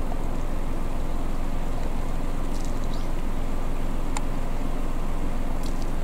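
Steady low rumble of outdoor background noise with a faint steady hum, and a few faint, brief high-pitched sounds.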